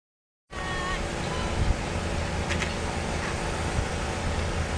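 Outdoor city ambience starting about half a second in: a steady low rumble, with people talking faintly and a few brief clicks.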